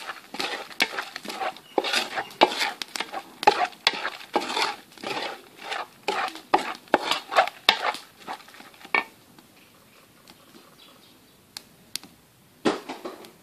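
Wooden spatula stirring and scraping a mix of chopped shallots and ground spices in a metal bowl: quick, irregular scrapes and knocks for about nine seconds, then it stops, with a few single taps near the end.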